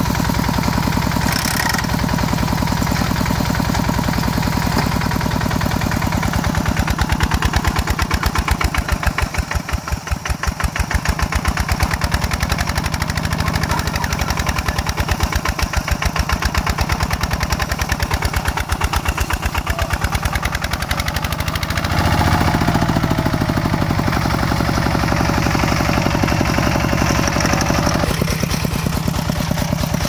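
Heavy machine's engine running continuously, with a steady low firing rhythm; its speed and loudness shift several times, notably about a third of the way in and again about two-thirds through.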